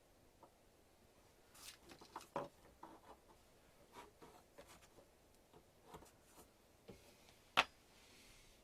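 Scattered small clicks and light taps of objects being handled, with one sharper, louder click at about seven and a half seconds in.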